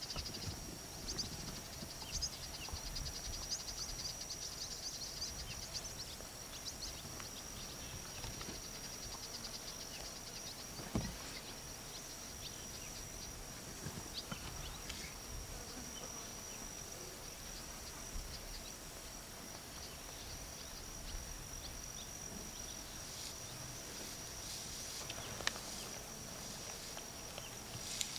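Insects droning steadily at a high pitch, with a fast trill over the drone in the first few seconds. A few faint clicks and one sharper knock about eleven seconds in.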